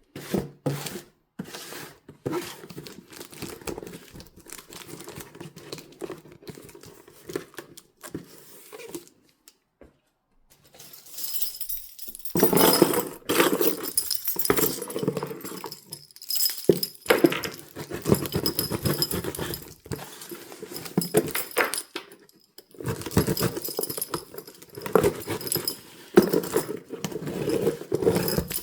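Hands handling and opening packaging: irregular rustling, crinkling and light clicks, growing busier and louder about halfway through after a short pause.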